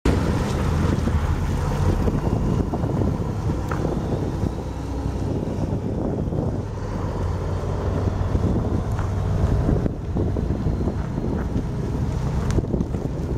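1992 Mack CH613 semi tractor's Mack E7 12.0-litre inline-six diesel engine running as the truck drives along the road: a steady low rumble, mixed with wind buffeting the microphone.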